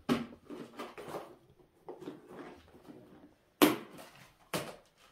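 Clattering and clicking of a clear plastic storage box and the bangles inside as they are handled and lifted out in plastic wrapping. There are two sharp, louder clacks near the end, the first the loudest.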